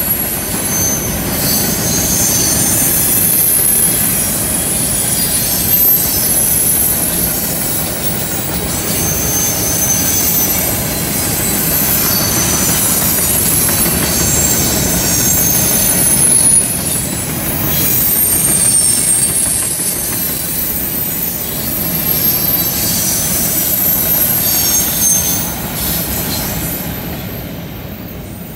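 Freight train of covered hopper cars rolling past on a curve: a steady rumble of wheels on rail, with high-pitched wheel squeal coming and going, tapering off near the end as the last cars pass.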